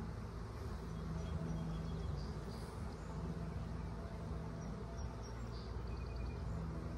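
Honeybees buzzing around an open hive, a steady low hum.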